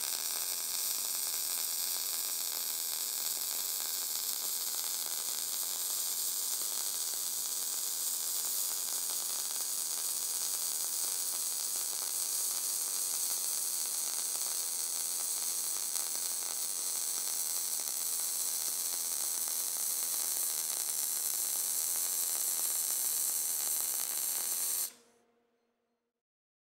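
MIG/MAG short-arc welding on 0.8 mm steel sheet with 0.6 mm SG2 wire under an 82/18 argon–CO2 mix: the arc gives a steady hiss, mostly high-pitched. It cuts off abruptly near the end as the arc is extinguished at the end of the seam.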